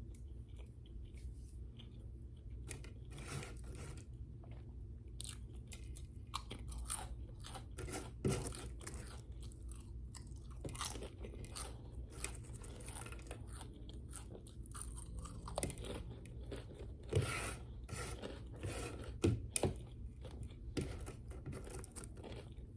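Close-miked chewing and crunching of crisp food, with irregular crackles and bites. A few louder crunches come about a third of the way in and again past the middle.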